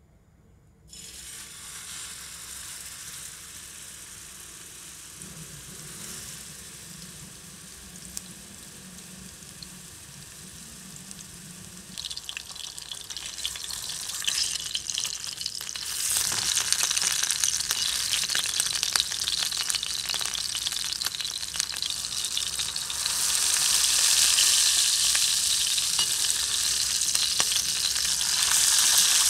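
Ground-beef burger patty frying in hot oil in a nonstick pan: the sizzle starts sharply about a second in as the raw patty goes into the oil, then grows steadily louder as it cooks.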